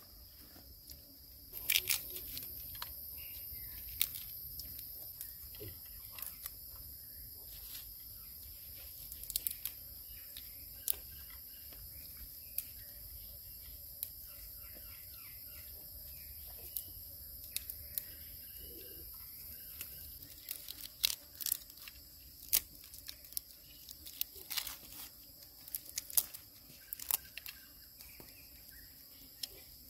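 Steady high-pitched insect drone, crickets or cicadas, with many sharp clicks and knocks from hands handling food and utensils scattered over it. The knocks come thicker and louder in the second half.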